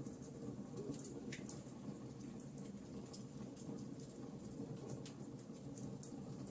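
Wood fire crackling in a fireplace: irregular sharp pops and snaps over a steady low rush of burning flames, with one stronger pop about a second and a half in.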